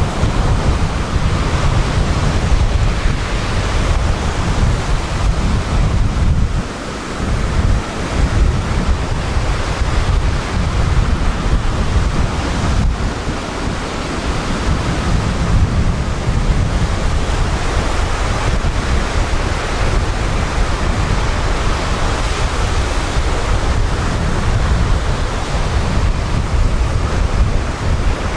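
Sea surf breaking and washing up a sandy, pebbly beach in a continuous rush, with a heavy low rumble of wind on the microphone. A brief lull comes about seven seconds in.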